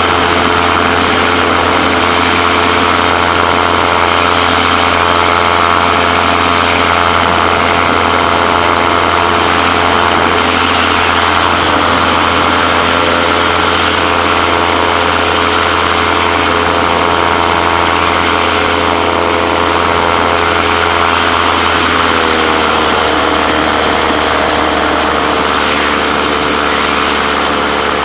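Gyroplane engine and propeller droning steadily in flight, with a constant rush of air noise. About 22 s in the engine note drops a little and holds at the lower pitch.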